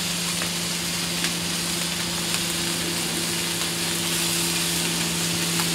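Pork chops sizzling on a hot Blackstone flat-top griddle as crushed pineapple is spooned onto them, over a steady low hum.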